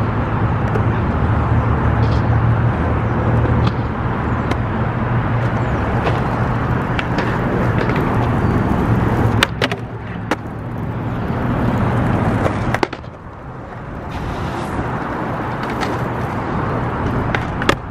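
Skateboard wheels rolling over concrete, a steady rumble, broken a little past halfway by several sharp wooden clacks of the board striking the ground, then quieter rolling.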